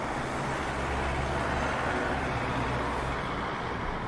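Road traffic with a car passing on the street alongside: tyre noise and a low engine rumble that fades out about three seconds in.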